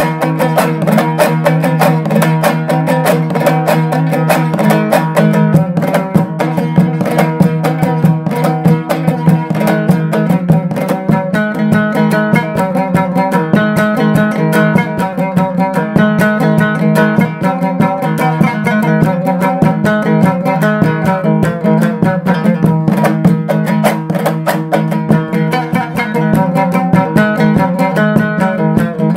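Instrumental background music: quick, busy notes over a steady low drone.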